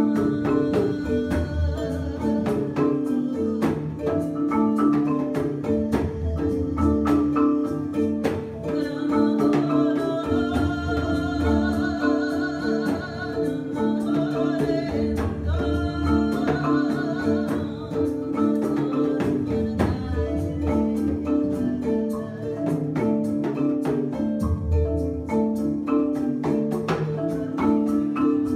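Improvised world music: a marimba plays a repeating low pattern over steady hand-drum strokes. A higher, wavering melody rises above it in the middle and fades out again.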